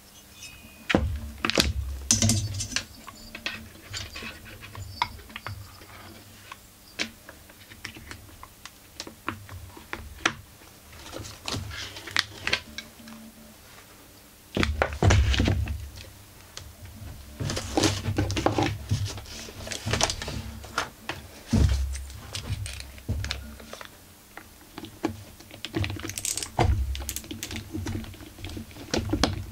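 Irregular clicks, taps and clatter of metal parts and hand tools being handled as a Husqvarna 44 chainsaw is dismantled: the cylinder is lifted off and the crankcase screws are worked with a screwdriver. A few heavier thumps come in the second half.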